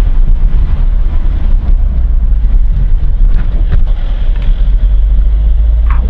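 A car driving at low speed, heard from inside the cabin: a steady low rumble of engine and tyre noise.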